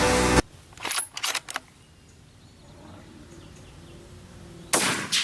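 A rifle shot near the end, a sharp crack whose report rolls away and fades over a second or more. Before it, a few light clicks and knocks, with intro music cutting off just before them.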